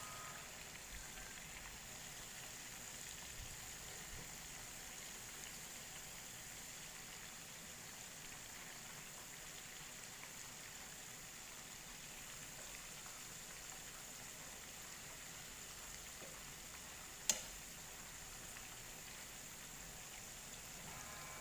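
Chicken pieces frying in hot oil: a faint, steady sizzle, with one sharp pop about three-quarters of the way through.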